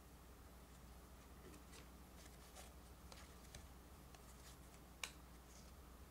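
Faint rustles and light clicks of Pokémon trading cards being handled and slid between the hands, with one sharper click about five seconds in.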